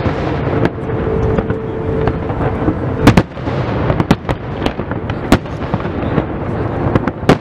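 Fireworks display: sharp shell bursts crack several times, the loudest about three seconds in and just before the end, over a continuous low rumble of further explosions. A steady low tone holds through the first two seconds.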